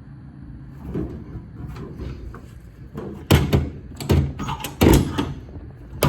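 Metal clunks and rattles from a utility truck's steel service body being worked by hand: a string of heavy knocks about three, four and five seconds in, and a sharp bang at the very end.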